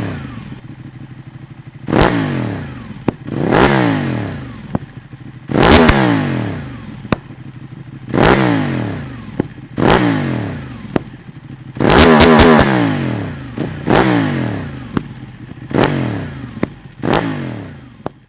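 Ducati Panigale 1299's L-twin engine, breathing through a Dominator aftermarket exhaust, revved in about ten sharp throttle blips, roughly one every two seconds. Each blip jumps up and then falls back toward idle, with a quick cluster of blips about twelve seconds in and short sharp pops between the revs.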